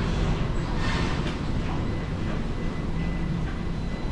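Steady low rumble in a tiled indoor corridor, with a thin steady high tone and a few soft, irregular taps.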